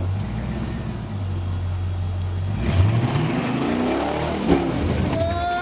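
Off-road vehicle's engine idling steadily, then revved hard about two and a half seconds in, its pitch rising as it climbs the rock ledge.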